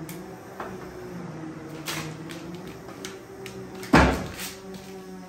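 Light knocks and one loud knock about four seconds in as a propellant grain for an AeroTech 98 mm rocket motor is pushed by hand into the motor casing, over a steady low hum.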